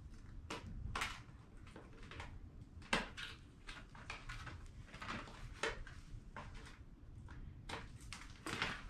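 Scissors snipping around the edges of a stiff clear plastic mat, with the sheet crinkling as it is handled: irregular short snips and rustles, with a sharper snap about three seconds in.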